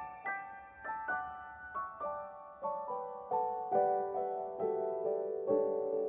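Background piano music: a gentle melody of single notes, each struck and left to ring, stepping down in pitch and getting a little louder toward the end.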